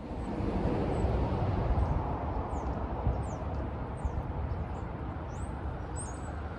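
Wind buffeting the microphone, a rough low rumble that rises and falls, with short high bird chirps scattered through it.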